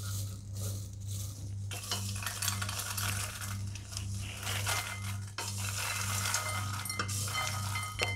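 Popped popcorn stirred in an aluminium pressure cooker with a wooden spatula, then poured into a glass bowl: a dense rattle of light kernels tumbling and ticking against the glass from about two seconds in. A steady low hum sits underneath.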